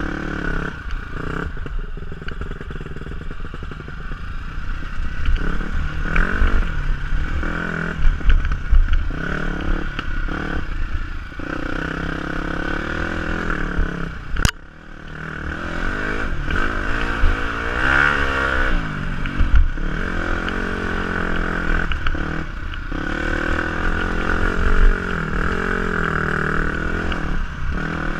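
KTM 250 SX-F dirt bike's single-cylinder four-stroke engine revving up and down while being ridden, with heavy wind rumble on the microphone and clatter from the rough ground. About halfway through there is a sharp click, and the engine briefly falls away before picking up again.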